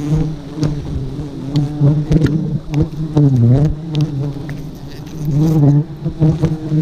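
A swarm of giant honey bees buzzing loudly close around the microphone. The buzz wavers in pitch and twice dips and rises as bees fly close past, about three and a half and five and a half seconds in. Occasional sharp clicks are heard.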